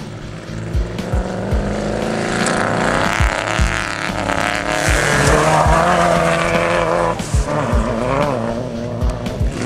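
Off-road race truck's engine revving hard at full throttle, its pitch rising and falling as it accelerates and shifts, loudest in the middle as the truck passes. A steady music beat of regular low thumps runs underneath.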